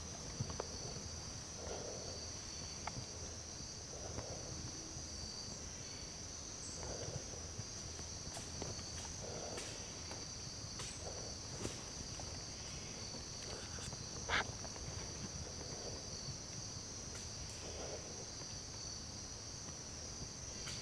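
Steady, high-pitched chorus of insects such as crickets in the woods. Soft low sounds come about every two seconds, and there is one sharp click about fourteen seconds in.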